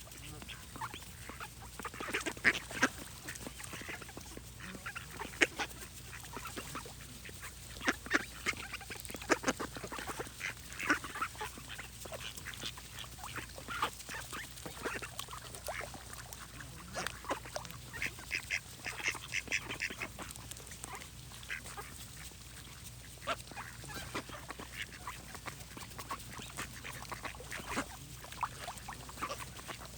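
Ducks quacking repeatedly in short calls at irregular intervals, over a steady low hum.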